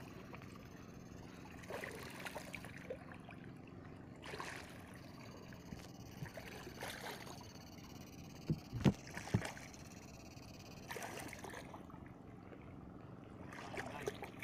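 Sloshing and splashing of legs wading through shallow, weed-choked marsh water, with a few sharper, louder hits about nine seconds in.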